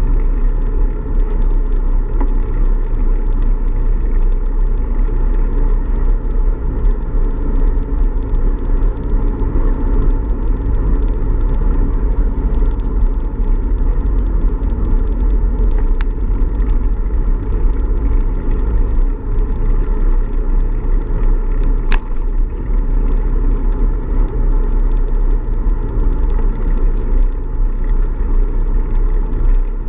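Steady low wind rumble buffeting the microphone of a bicycle-mounted action camera while riding, with road rumble under it. A brief click about two-thirds of the way through.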